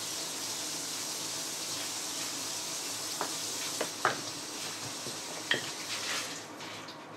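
A few light metallic clicks and clinks as small Shimano bottom-bracket parts (steel bearing cups and ball bearings) are handled and set down on a cloth-covered table, mostly in the second half, over a steady hiss.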